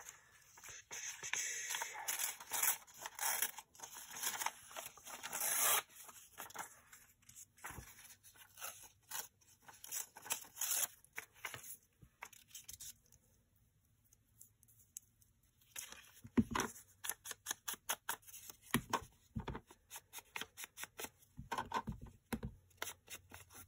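An old book page torn by hand: a run of ripping and rustling paper over the first few seconds, then lighter paper handling and small clicks. Over the last several seconds, soft separate taps as an ink blending tool is dabbed on an ink pad.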